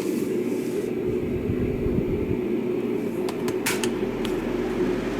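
A 1991 Windmere DF-16 16-inch oscillating table fan, which has a plastic motor, running steadily: a motor hum under the rush of air from the blades. A few sharp clicks come about three to four seconds in.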